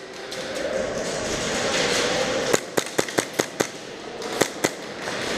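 Airsoft guns firing: a quick string of about six sharp shots, about five a second, then two more shots close together about a second later.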